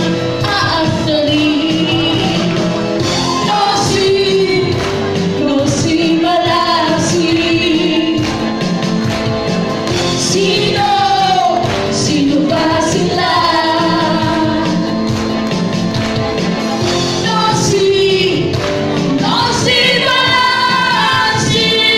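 Two women singing a duet into handheld microphones over loud backing music.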